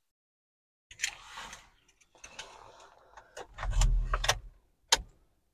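Car keys jangling and clicking as the ignition key is inserted and turned on, with a louder low bump from handling about four seconds in and a sharp click near the end.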